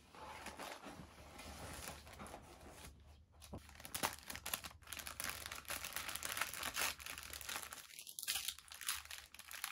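Tissue wrapping paper crinkling and rustling as hands unfold it, a dense run of small crackles.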